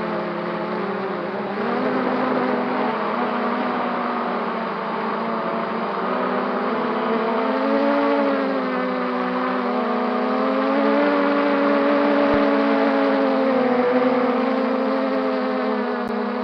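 Brushless motors of an MJX Bugs 3 quadcopter whining in flight, the pitch wandering up and down with the throttle and stepping higher about halfway through, over a steady rush of air.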